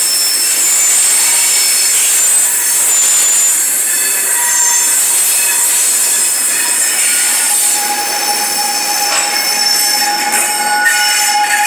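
Steel wheels of a loaded Norfolk Southern coal train screeching as the last hoppers and then the rear ES44AC pusher locomotives roll past. Several high, steady squeal tones sound at once, and a lower squeal tone comes in over the second half.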